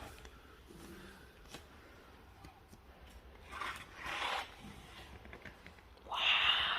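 Faint rustling and scraping of gift items and packaging being handled, a couple of short rasps midway and a louder rustle near the end.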